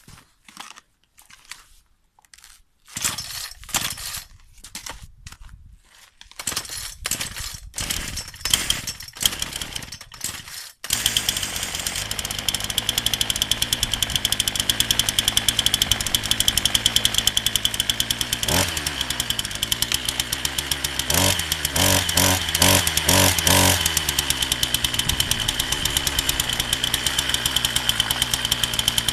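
Partner 340S two-stroke chainsaw being started: a series of short bursts from pulls on the starter over the first ten seconds or so, then the engine catches about eleven seconds in and runs steadily with a high tone. It is revved once briefly and then in a quick run of blips, before settling back to an even idle.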